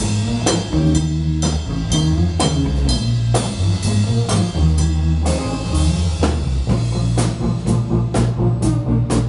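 A live band playing: a drum kit keeps a steady beat under electric guitars and bass.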